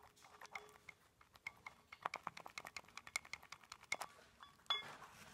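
Light metallic clicking and tapping as a 5.7 Hemi roller lifter is handled and turned against a camshaft lobe, a quick irregular run of small ticks that is busiest through the middle.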